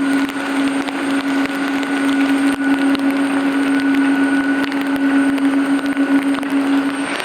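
Boeing 777-200 twin-jet airliner taxiing, its engines at idle giving a steady low hum with a fainter high whine over an even rushing noise. The sound changes abruptly just before the end.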